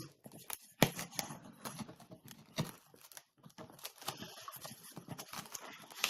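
A shipping package being opened by hand: irregular snaps, crinkles and rips of packaging, with the sharpest snap about a second in.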